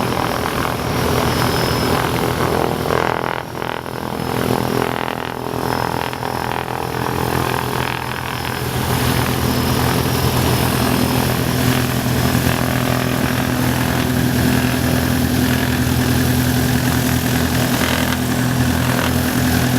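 Mooney M20E's four-cylinder Lycoming engine and propeller running, a steady drone that dips slightly a few seconds in and then holds even.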